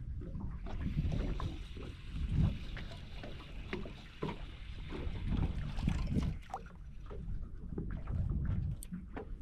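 Small boat drifting on calm water: an uneven low rumble of wind and water against the hull, with scattered light knocks and clicks.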